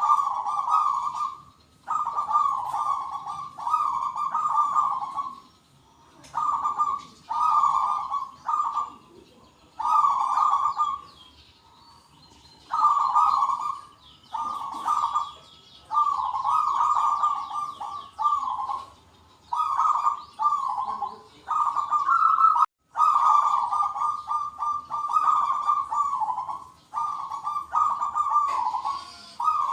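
Zebra doves (perkutut) cooing in repeated rolling phrases, one every second or two, several birds answering one another. Faint higher chirping from other small birds sounds behind them.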